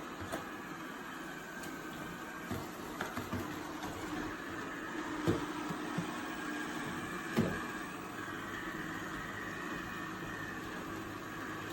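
eufy RoboVac 11S Max robot vacuum running with a steady motor hum and faint whine, with a few short knocks along the way.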